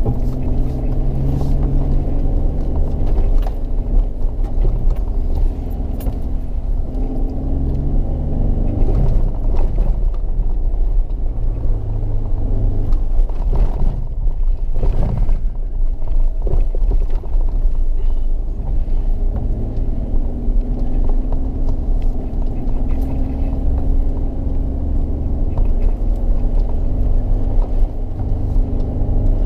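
Off-road vehicle's engine running as it drives over sand and stones, its note rising and falling with the throttle, with knocks and rattles from the bodywork over the rough track.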